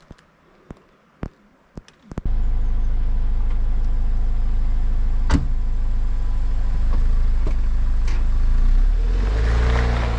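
A few faint ticks, then about two seconds in a Jeep Wrangler Rubicon's engine running steadily and loud close by. Near the end the engine note rises as the Jeep pulls away, its tyres crunching on gravel.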